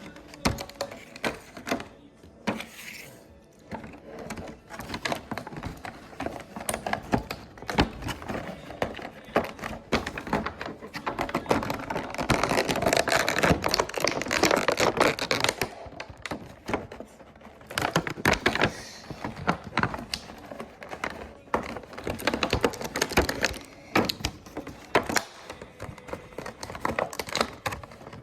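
Hands working at plastic toy packaging: irregular clicks, taps and crinkling, busiest in the middle.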